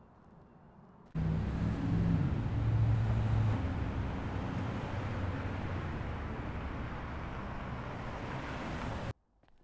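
Road traffic noise: a vehicle's low engine drone with a hiss of road noise. It cuts in suddenly about a second in, eases off slowly, and stops abruptly near the end.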